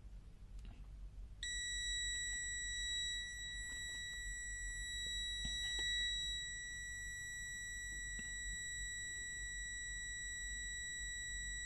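Continuity buzzer of an NJTY T1 pocket multimeter sounding one steady, high-pitched beep that switches on about a second and a half in and holds without a break: the meter is signalling continuity between its test leads.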